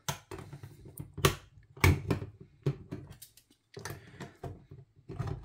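Old-style hand-held lever tin opener cutting around the rim of a steel can lid, giving a string of irregular metallic clicks and crunches.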